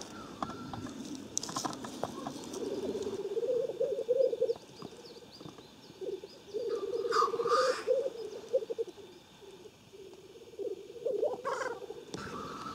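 Male black grouse at the lek: their courtship song, a low bubbling cooing that comes in long runs with short gaps. It is broken by a loud hissing call about seven seconds in and another shorter one near the end.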